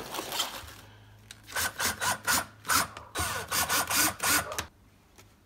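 Cordless drill/driver running in about four short spurts, driving screws into a plastic speaker adapter ring, then stopping near the end. Light handling noise comes first.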